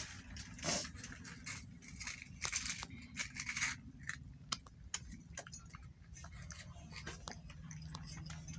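Faint scattered clicks and small mouth and handling sounds of a toddler eating food with his fingers, over a steady low hum.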